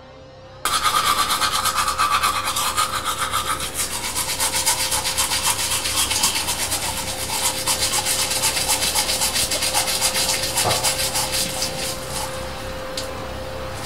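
Manual toothbrush scrubbing back and forth against teeth, close and loud: fast, rapid strokes that start abruptly about half a second in and soften slightly near the end.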